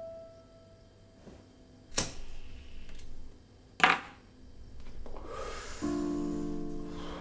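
Two sharp clicks, one about two seconds in and a louder one about four seconds in, each with a short hiss after it. Near the end a sustained chord of film score comes in.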